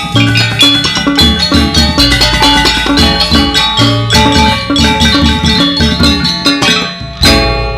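Gamelan ensemble accompanying a Balinese dance, playing fast ringing metallophone patterns over drum strokes, with a deep sustained note near the end.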